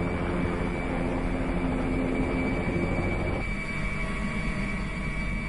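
Helicopter in flight: a steady rumble with a steady high whine above it. The low hum shifts about three and a half seconds in.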